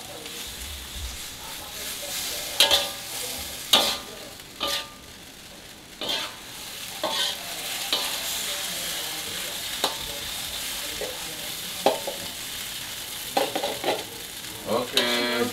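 Water spinach stir-frying in a stainless steel wok over a gas flame: a steady sizzle, with the metal spatula scraping and clanking against the wok every second or two.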